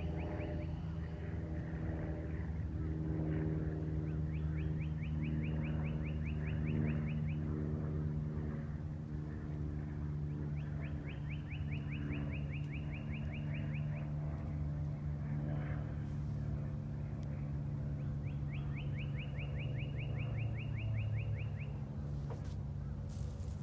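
A steady low engine hum runs throughout. A bird's fast trill of short rising notes, each phrase about three seconds long, is heard three times.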